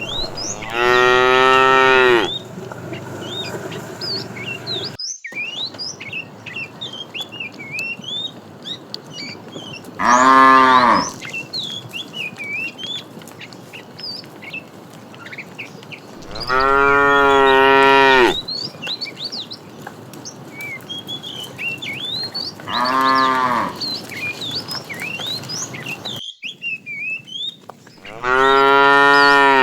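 Cows mooing: five long, loud moos spaced several seconds apart, with many short high chirps between them.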